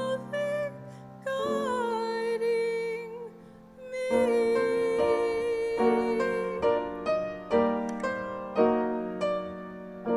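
Music played on piano or keyboard: held chords, then a slow run of struck chords, each ringing out and fading, with the sound dying away after the last chord near the end.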